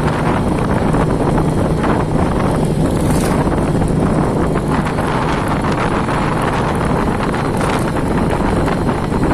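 Wind blowing hard across the microphone: a loud, steady rumble of wind noise without let-up.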